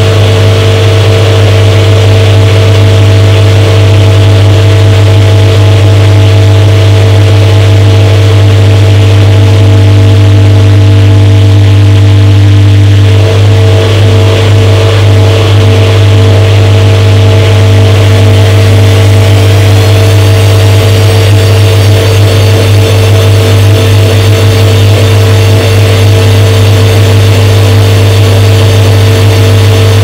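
Front-loading washing machine running with its drum tumbling the laundry: a loud, steady low motor hum with a few steady higher tones. The tone shifts slightly a little before halfway, and a faint high whine joins about two-thirds of the way through.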